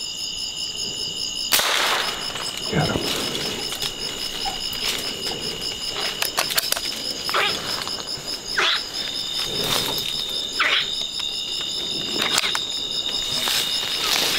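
Night chorus of crickets, a steady pulsing high trill, broken by scattered sharp clicks and knocks, the loudest about one and a half seconds in, and a few short squeaky calls.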